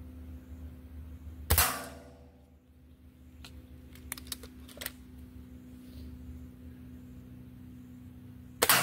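Gamo Swarm Whisper .22 break-barrel air rifle firing two shots about seven seconds apart, each a sharp crack followed by a short ring. Between the shots, a few light clicks as the barrel is broken open and cocked.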